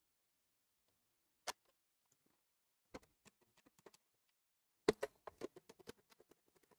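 A few sparse plastic clicks and taps as the Coredy robot vacuum is handled and turned over, mostly near silence. A sharper knock about five seconds in is followed by a quick run of small rattling clicks.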